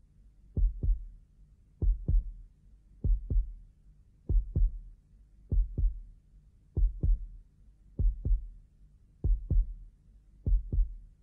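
Slow heartbeat: a double thump, lub-dub, repeating evenly about every 1.2 seconds, around nine beats in all.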